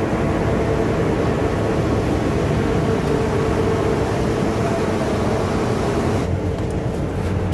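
Diesel coach engine idling alongside: a steady drone with a constant hum. About six seconds in, the sound turns duller.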